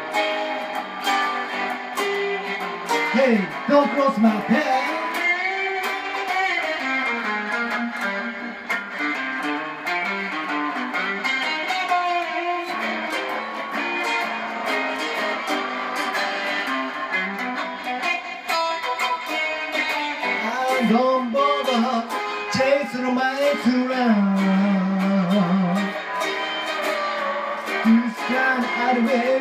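Gretsch hollow-body electric guitar playing rockabilly, with several notes bent or slid in pitch.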